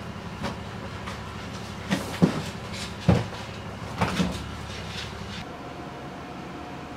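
A handful of knocks and thuds from books and papers being handled and set down on a wooden desk, with light rustling; the loudest thud comes about three seconds in. A steady low hum runs underneath.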